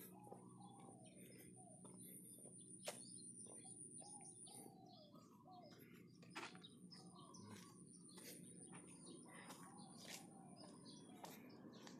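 Faint, repeated mewing of a kitten stranded in a drain, short arched cries every half second or so. A thin high steady whine runs behind it, breaking off briefly about halfway.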